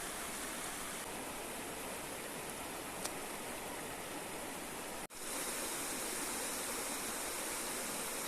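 River water flowing steadily. About five seconds in the sound breaks off for an instant and comes back a little louder, and there is a faint click near three seconds in.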